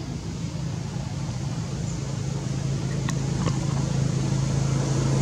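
Steady low engine-like hum that grows gradually louder, with two faint clicks about three seconds in.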